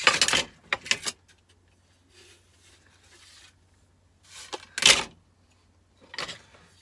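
Small brass spade terminals clinking and rattling as they are handled: a quick run of clicks at the start, a louder clatter in the middle and a few light clicks near the end.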